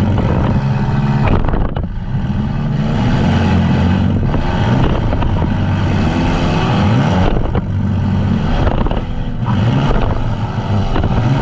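Demolition derby vans' engines revving hard, the pitch rising and falling over and over.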